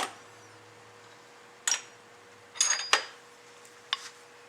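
A steel punch and small metal parts clinking against the metal pump casting: a handful of separate sharp clinks, with a quick cluster about three seconds in.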